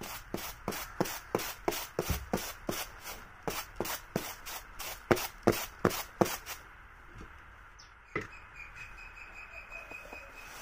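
Coarse white grain being tossed and shaken on a woven bamboo winnowing tray: a quick, even run of swishing strokes, about three or four a second, which stops after about six and a half seconds. A single knock follows about eight seconds in.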